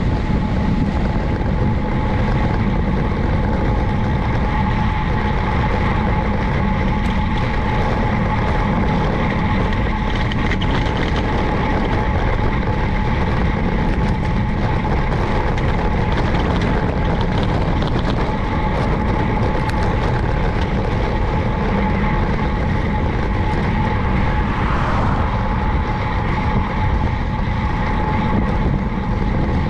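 Wind rushing over the microphone and tyre noise on the road from a road bicycle being ridden, a steady rumbling roar with a constant thin whine running through it.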